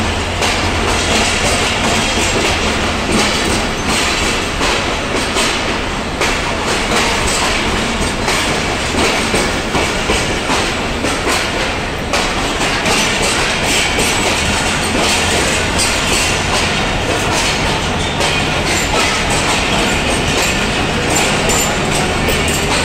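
Pakistan Railways passenger coaches of an arriving express train rolling past along the platform: a steady rumble with wheels clacking over the rail joints.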